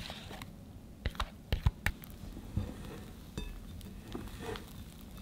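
Spatula folding thick sponge-cake batter in a glass bowl: soft wet scraping and squelching, with a few sharp knocks against the glass about a second in.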